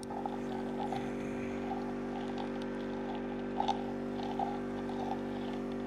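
Small backpack-mounted gasoline engine of a water-jet egg-planting rig running steadily at constant speed, with a few faint taps over it.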